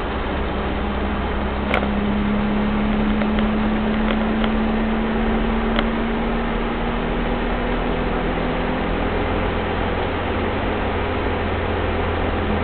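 Turbo-diesel engine of a 1983 Mitsubishi Pajero running as it drives along, heard from inside the cabin together with road noise. A steady engine drone climbs slightly in pitch, then fades a few seconds before the end, and two faint clicks come early on.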